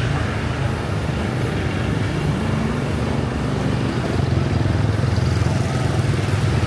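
Street traffic: a steady, even rumble of passing road vehicles.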